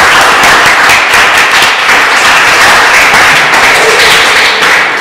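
Audience applauding: dense, loud clapping from a small crowd.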